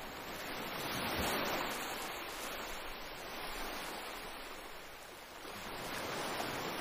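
Water washing and rushing along the hull of a small outrigger boat, a steady noise that swells about a second in and again near the end.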